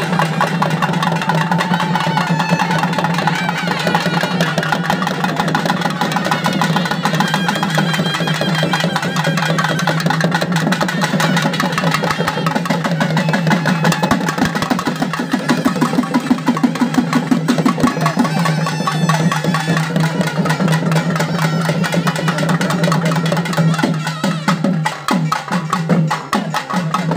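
Festival drums playing a fast, dense beat over a steady low hum. Near the end the beat breaks into separate, spaced strokes.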